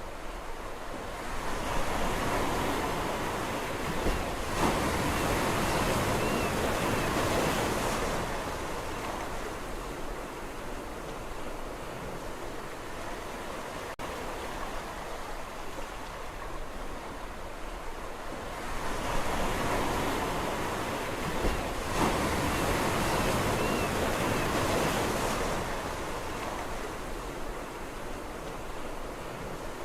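Sea waves on a shore. Two waves surge in, one about two seconds in and one shortly before the twentieth second, each swelling for about six seconds and then falling back to a low steady wash.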